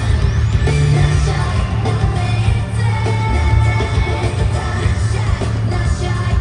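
Live K-pop song with singing over the arena sound system, heavy on the bass.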